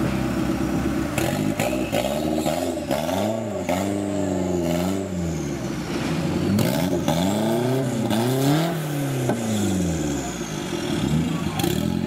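Off-road competition 4x4's engine revving hard under load as it climbs over a log in deep mud, its pitch rising and falling twice in long surges, with knocks and clatter from the chassis.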